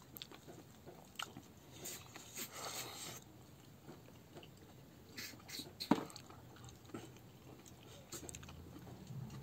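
Close-up chewing and mouth sounds of a person eating rice and meat by hand: faint scattered wet clicks and smacks, with one sharper click about six seconds in.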